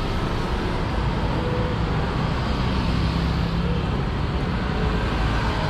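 Steady din of passing road traffic.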